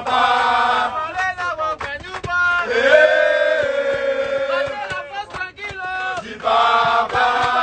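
Men chanting a song, with long drawn-out held notes alternating with quicker sung phrases.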